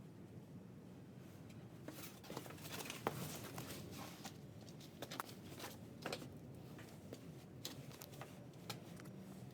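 Faint handling noises: scattered light clicks, knocks and rustling as loose objects are moved about, busiest a couple of seconds in.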